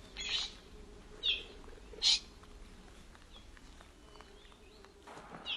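A bird giving short, sharp calls: three in the first two seconds or so, then another right at the end.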